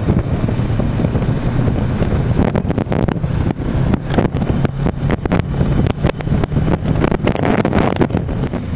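Kawasaki Versys 650 motorcycle's parallel-twin engine running on the move, with wind buffeting the microphone and many short knocks and jolts from riding over a badly broken road surface.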